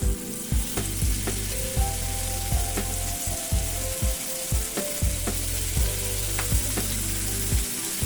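Marinated chicken pieces sizzling steadily in hot ghee in a pan, with scattered sharp clicks throughout.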